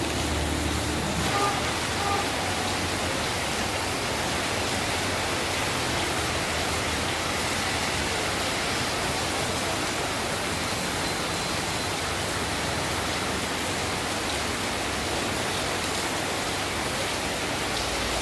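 Steady rain, an even hiss, with the low rumble of a passing vehicle fading out in the first second or two.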